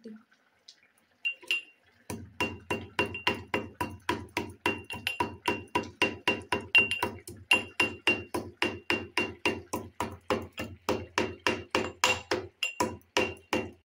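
Cardamom pods being pounded in a small metal mortar with a metal pestle: sharp metallic strikes, each with a brief ring, about three to four a second. It starts with a couple of strikes a little over a second in, then runs steadily with a short pause near the end.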